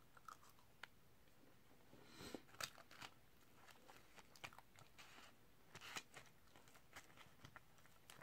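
Quiet, close-miked eating: chewing a mouthful of animal-style fries, with short clicks and scrapes from a plastic fork in a paper fry boat. The loudest clusters of clicks come about two and a half seconds in and again about six seconds in.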